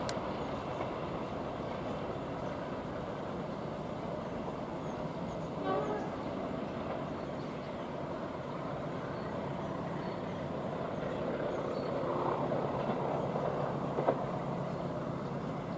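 Steady outdoor traffic noise, with a brief faint tone about six seconds in and a short click near the end.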